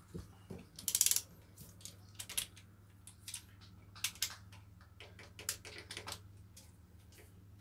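Socket ratchet clicking as it is worked on the cylinder head bolts of a Ford 351 Windsor V8 marine engine: a fast rattling run of pawl clicks about a second in, then scattered short clicks on the back-swings.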